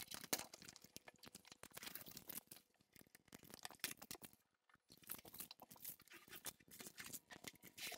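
Faint crackling and crinkling of protective plastic film and packing strips being handled and peeled from a new TV panel, in many small scattered clicks.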